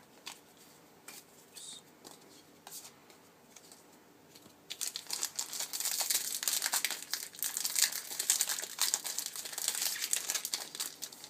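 Foil booster-pack wrapper being torn open and crinkled, a dense run of crackling that starts about halfway through after a few seconds of faint handling ticks.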